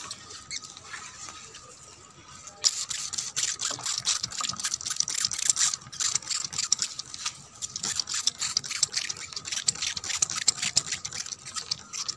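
Sprayer squirting liquid onto plant leaves in quick repeated hissing sprays, about two a second, starting about two and a half seconds in.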